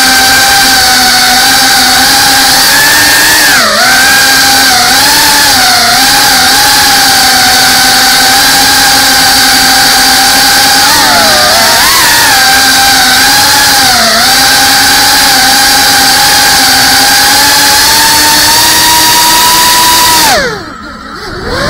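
FPV drone's electric motors and propellers whining, the pitch dipping and rising with each throttle change. Near the end the whine drops steeply and quietens for about a second, then picks up again.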